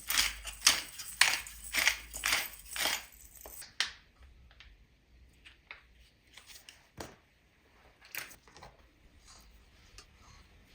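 Food being worked by hand on a kitchen surface: a run of about ten quick scraping or cutting strokes, roughly three a second, for the first few seconds. After that come scattered light clicks and taps.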